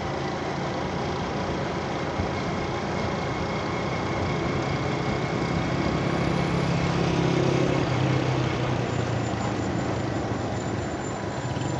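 Motorcycle engine running while riding, mixed with steady wind and road noise; the engine gets louder between about four and eight seconds in.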